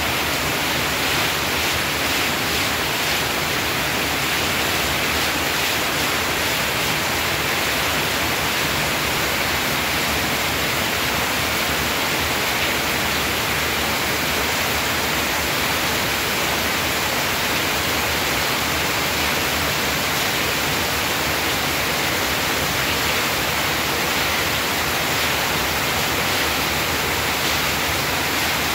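Heavy rain pouring steadily, splashing onto a wet concrete yard and onto leaves and plant pots.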